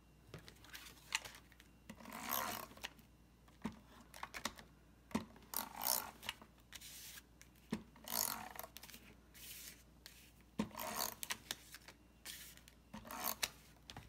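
A Glue Glider tape runner laying adhesive onto cardstock in about eight short strokes, each a brief scratchy zip, with small clicks between them.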